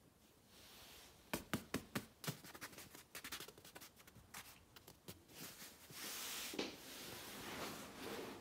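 A quick run of sharp taps or clicks, about a dozen over four seconds, then about two seconds of rustling.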